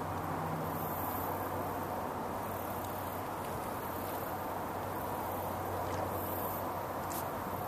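Steady outdoor background noise: an even hiss with a low steady hum underneath and no distinct events.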